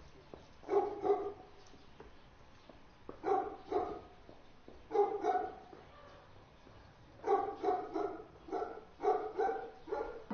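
A dog barking repeatedly in groups of two or three barks, with pauses of a second or two between groups.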